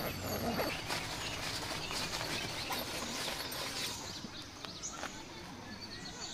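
Birds chirping in the background, with the rustle of canvas tent fabric as it is pulled and handled.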